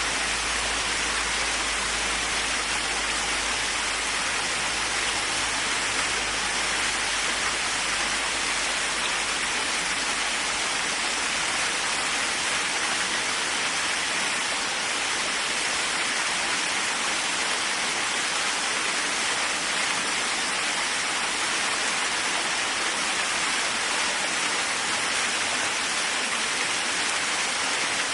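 Waterfall: water pouring and splashing in a steady, even rush.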